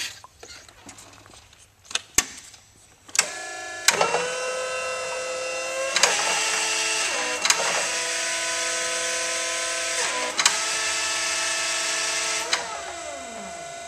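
Clark TMG-20 36-volt electric forklift switched on and worked: a few sharp clicks, then its electric motor and controller run with a steady whine and a hiss over it, with more clicks as the controls are worked. Near the end the whine falls in pitch as the motor spins down.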